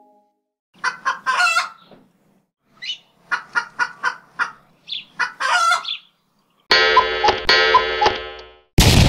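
Chicken clucking in short quick runs, then a rooster crowing for about two seconds. A sudden loud bang cuts in near the end.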